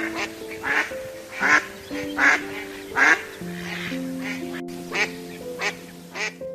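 A duck quacking repeatedly, about nine short quacks spaced under a second apart, over background music with sustained notes.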